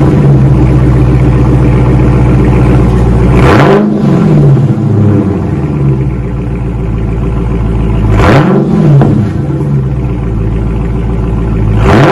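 A 2023 Dodge Challenger Scat Pack's 392 (6.4-litre) HEMI V8 idles through Walker Dynomax race bullet mid mufflers and the factory resonators and tips. It is revved briefly: once about three and a half seconds in, again about eight seconds in, and a third time starting right at the end.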